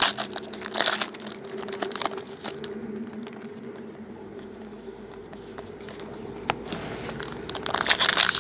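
Foil trading-card packs (2014 Topps Valor football) being torn open and crinkled: dense crackling at the start and again near the end. In between, quieter handling as the cards are flipped through.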